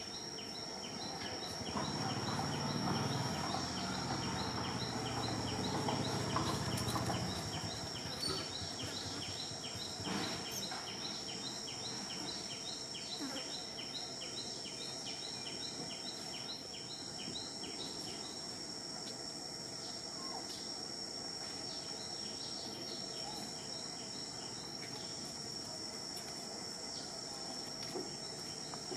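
Outdoor insect chorus: a steady high-pitched drone, with a chirping insect pulsing a few times a second until about two-thirds of the way through. A low rumbling noise swells over the first few seconds.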